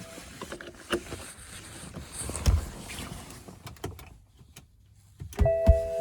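Scattered clicks and knocks of handling around a car, with a low thump about two and a half seconds in and two more near the end. A few steady tones start up near the end.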